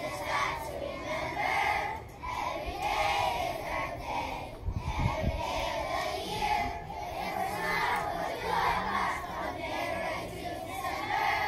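A group of young children singing together in unison, in long drawn-out phrases.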